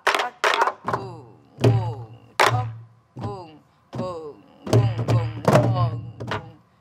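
Sori-buk (pansori barrel drums) played by a group in a practice rhythm. Sharp stick cracks on the wooden shells alternate with deep booming strikes on the cowhide heads, in an uneven repeating pattern of about a stroke or two each second.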